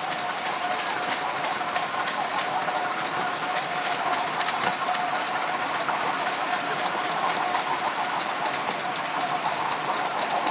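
A 7¼-inch gauge miniature steam locomotive running, a steady hiss of steam with a stream of light, irregular clicks and knocks.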